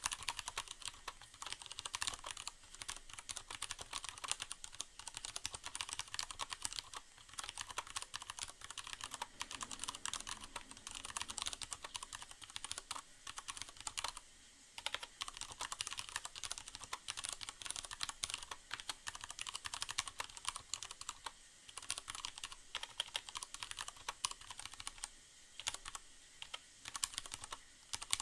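Fast, steady typing on a Leopold FC750R mechanical keyboard with tactile, non-clicky Cherry MX Brown switches and a sound-absorbing pad inside the case. The keystrokes come in dense runs with a couple of short pauses.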